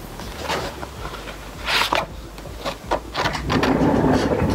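Paper and handling noise from a large photobook album being flipped and swung about: a few short rustles and clicks, then a longer stretch of rustling and shifting about three and a half seconds in.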